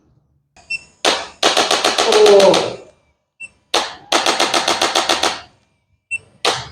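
Three bouts of rapid percussive tapping on a patient's body, about ten strikes a second and each lasting a little over a second, with the patient's voice shaken in rhythm beneath the strikes.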